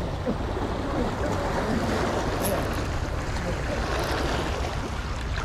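Sea waves washing against shoreline rocks, with wind rumbling on the microphone. It is a steady noise without a break.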